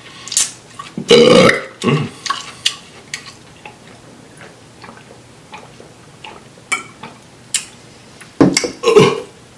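A man burping twice, about a second in and again near the end, with small wet mouth clicks and smacks from eating and drinking between.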